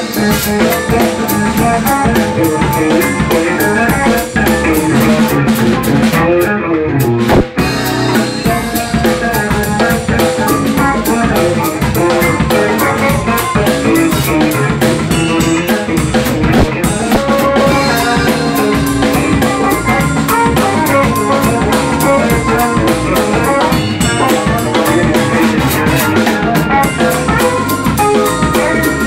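Live funk-fusion band jamming: drum kit and hand drum driving a groove under electric bass, with guitar-like lines played on a six-string F-Bass BN6 through a Roland VB-99 modelling unit. The high end drops out briefly around six to seven seconds in, ending on a sharp hit.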